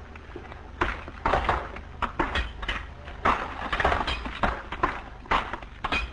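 Irregular run of sharp knocks and clatter, two to four a second, like hand tools striking rock at a work face.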